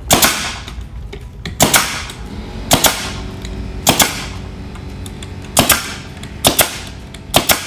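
Pneumatic air stapler firing 1.5-inch staples into the wooden corner joint of a beehive body, about seven shots roughly a second apart, each a sharp double crack.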